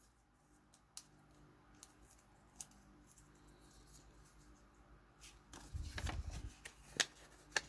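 Quiet handling noises from small model parts and their packaging: a few faint clicks, then rustling and soft knocks from about five and a half seconds in.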